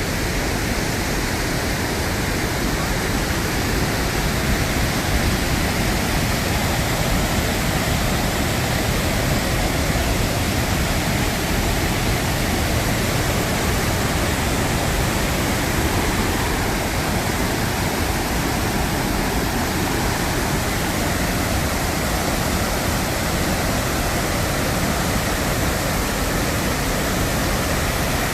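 Waterfall and river water rushing, a loud, steady roar that holds unchanged throughout.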